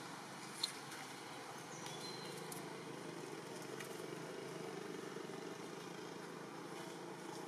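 Steady outdoor background noise with a low rumble, a single sharp click about two-thirds of a second in, and a few faint short high peeps around two seconds in.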